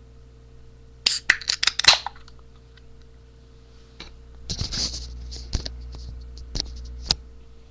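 A quick run of sharp clicks and crackles about a second in, then rustling and scraping with a low rumble and a few more clicks: things being handled right against the webcam's microphone, and the webcam itself being moved.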